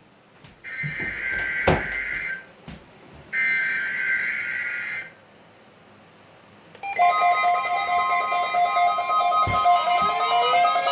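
NOAA Weather Radio EAS SAME header: two bursts of shrill digital data tones, each about a second and a half long, a second apart. About seven seconds in, a steady warning alarm tone starts with pulsing, music-like tones over it.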